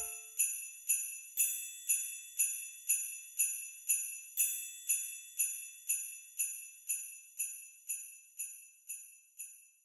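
Jingle bells shaken in a steady beat, about two shakes a second, fading out gradually.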